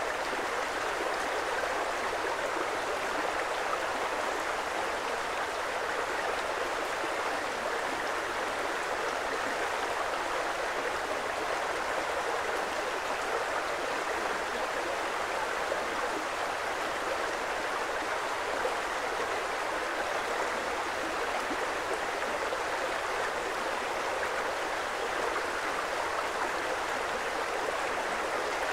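A creek's water flowing steadily: an even, unbroken rush that does not change.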